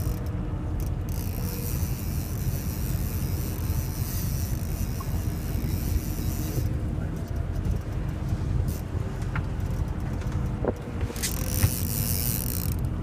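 Fishing boat's engine running steadily with a low rumble and faint hum, with wind on the microphone.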